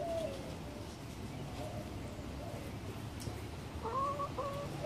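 Hens making short, soft pitched calls over and over, with a louder two-note call about four seconds in.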